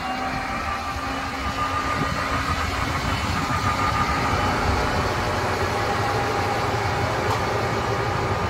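A B-17G's electric bomb bay door motor running as it drives the bomb bay doors, giving a steady mechanical whine over a low rumble.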